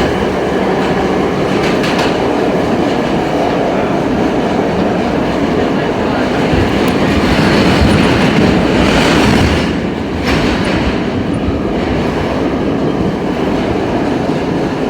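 R32 subway train running on the track, a steady loud rumble with rail clatter. It swells louder a little past the middle, drops briefly, then settles back.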